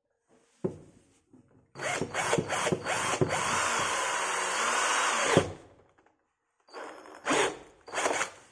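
Makita drill boring a hole: a few short trigger bursts, then a steady run of about three and a half seconds that stops, with a couple more short bursts near the end.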